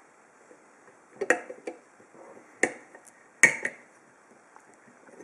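Sharp metal clicks and clacks from a just-opened Viro 50 mm padlock and the picking tools being handled, in three groups spread over a few seconds.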